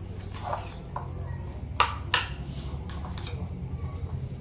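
A kitchen utensil clinks sharply twice against a dish, about a quarter-second apart, over a steady low hum.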